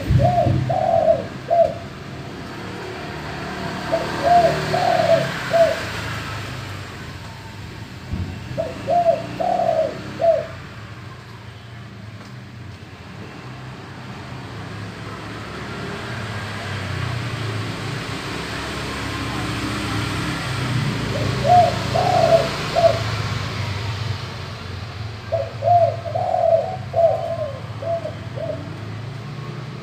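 Male spotted dove cooing its deep-voiced song, phrases of several notes each, six phrases with a long pause near the middle. A low steady rumble lies under the calls.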